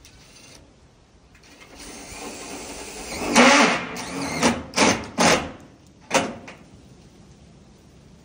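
Cordless drill driving a screw into wood: it runs for about two seconds, then goes in four short bursts.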